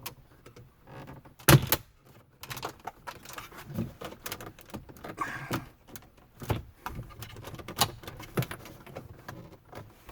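Plastic dash bezel of a Ram 1500 being pulled forward by hand: irregular clicks, knocks and rattles as the trim clips let go, with one sharp pop about a second and a half in.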